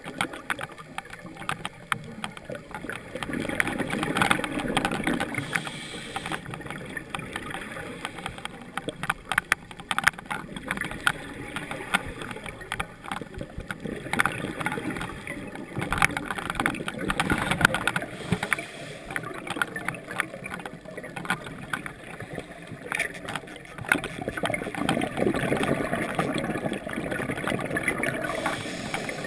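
Underwater sound of scuba breathing: a diver's regulator exhaust bubbles rumbling and gurgling in swells every several seconds, with scattered sharp clicks in between.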